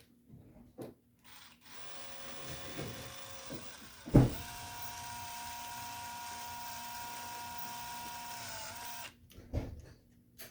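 A small electric power tool's motor, likely a drill, runs with a steady whine for about five seconds. It starts with a sharp click about four seconds in and winds down slightly before cutting off. Light knocks of handling come before and after.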